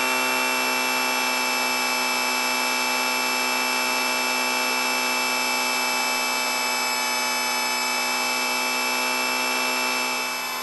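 Light aircraft's engine running steadily at cruise, a constant droning buzz; near the end it dips a little in loudness and its pitch shifts, as with a throttle change.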